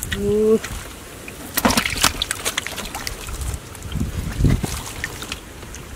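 Bare hands sloshing and splashing in shallow muddy water while grabbing fish, in scattered bursts about a second and a half in and again around four seconds. A brief steady hum comes right at the start.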